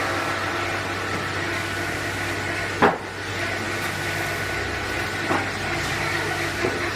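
Sawmill machinery running steadily with a constant hum, with one sharp knock about three seconds in and a fainter one a little later.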